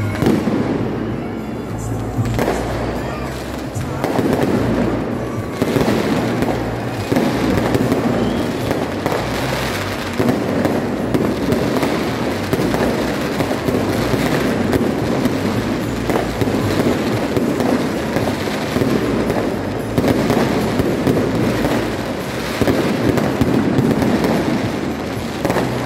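Aerial fireworks bursting one after another in a dense, continuous run of bangs.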